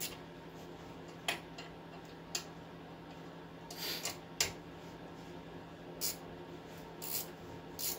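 Scattered light metallic clicks and clinks, about six spread over several seconds, as the wheel hub bearing's mounting bolts are fed in and started by hand from behind the steering knuckle. A steady low hum runs underneath.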